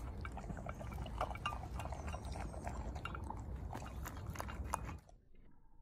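Alaskan malamute puppy eating dry kibble from a glass bowl: irregular crunching and small clicks of kibble against the glass over a low rumble. The sound cuts off suddenly about five seconds in.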